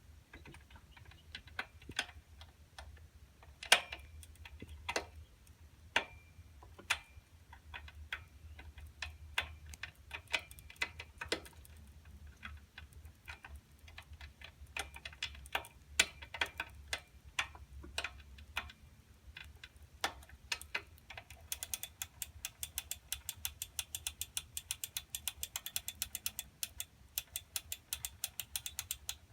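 Schwinn Meridian tricycle drivetrain being pedalled, giving irregular sharp clunks and clicks: the sign of a primary (front) chain set too tight. About three-quarters of the way through the clunks give way to a fast, even ticking.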